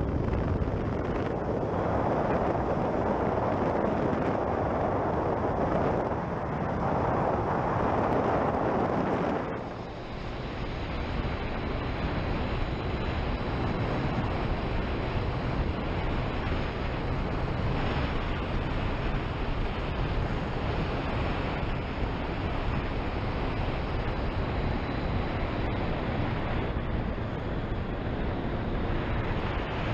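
Wind rushing over a helmet-mounted microphone on a moving Triumph Street Triple, with the bike's three-cylinder engine running underneath. The wind is heavier for the first ten seconds, eases suddenly about ten seconds in, and the low engine note comes up a little near the end.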